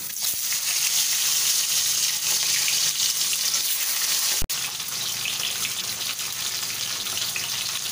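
Turmeric-coated fish pieces frying in hot oil in a kadai: a steady, loud sizzle that starts as the fish goes into the oil. About four and a half seconds in there is a brief dropout.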